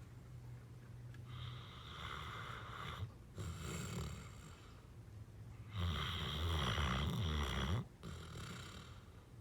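Saint Bernard snoring in its sleep: a rattly low snore with each breath, about four breaths in all. The loudest snore, about two seconds long, comes a little past the middle.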